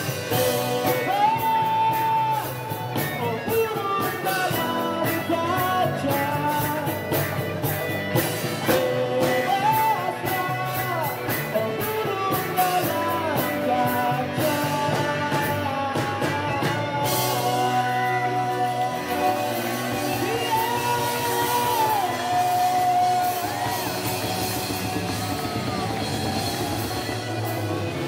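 Live rock band playing a song: a sung lead vocal over keyboard, electric guitar and drum kit.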